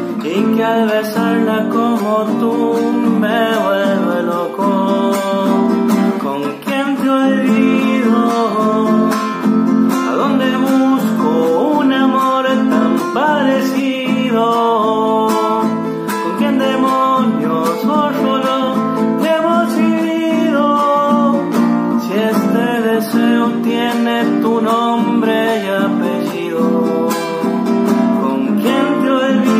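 A man singing a Spanish-language ballad while strumming an acoustic guitar.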